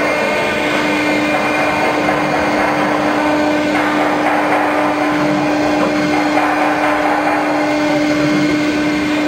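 Water-cooled spindle of a CNC router running with a steady whine while its bit mills a lattice pattern through a white sheet, over a continuous rushing noise of cutting.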